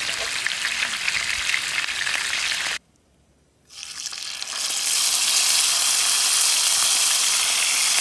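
Sliced potatoes and onions frying in fat in a grill pan on a portable gas burner, a steady sizzle. About three seconds in it cuts off for about a second, then kimchi frying in the fat sizzles louder.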